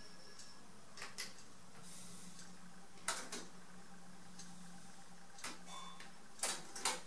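Front-panel buttons of a Philips DCC900 digital compact cassette deck clicking as they are pressed, about seven short clicks, mostly in pairs, over a low steady hum.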